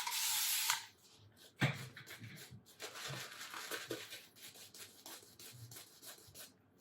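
A steady spray-like hiss that cuts off under a second in, then a knock and soft, irregular rubbing and scratching from wet-shaving gear being worked.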